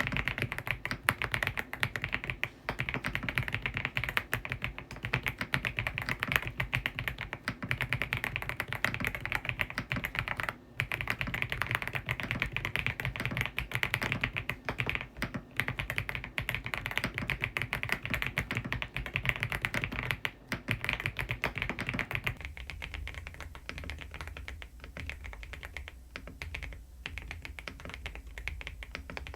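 Continuous fast typing on a Preflow F1 PRO MAX full-size mechanical keyboard, a dense run of keystroke clacks. About 22 seconds in, the keystrokes turn fainter and sparser over a low steady hum.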